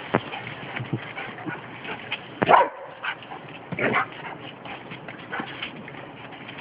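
A dog barking twice, about a second and a half apart, the first bark the louder, with a few light knocks before them.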